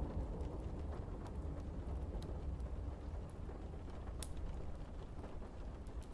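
Low rumble of thunder slowly dying away over steady rain, with scattered sharp ticks.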